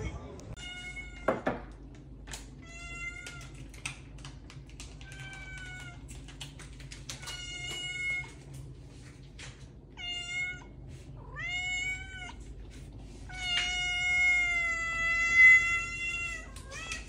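Domestic cat meowing again and again, about seven meows, ending in one long, drawn-out meow. A thump comes about a second in.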